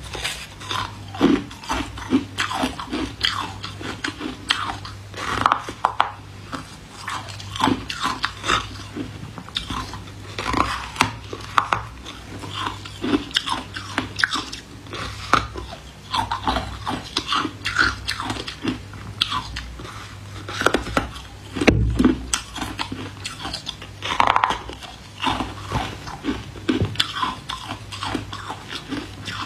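Hard frozen ice being bitten and chewed close to the microphone: a steady run of sharp crunches and crackles as the ice breaks between the teeth, with one louder crunch roughly three-quarters of the way through.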